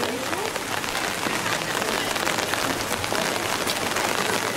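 Steady rain falling on a wet street: an even hiss with a dense patter of drops.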